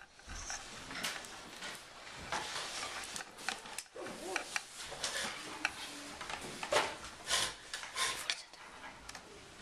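Classroom handling noise: irregular rustling, light clicks and small knocks of things being moved on desks.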